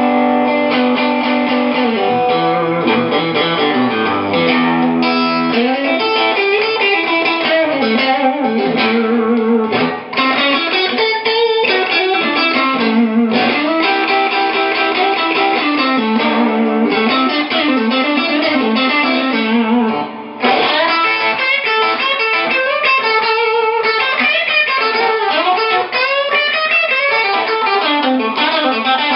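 Les Paul GRS Custom electric guitar played through an Acedo Audio 290 amplifier: a solo lead line of single notes with many bends, pausing briefly about ten and twenty seconds in.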